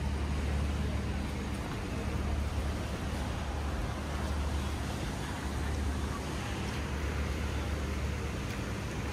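Steady urban traffic noise: a constant low hum over an even wash of street sound.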